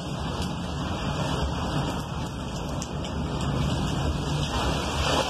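Cyclone storm surf against a concrete sea wall with strong wind: a steady rushing noise with a low rumble.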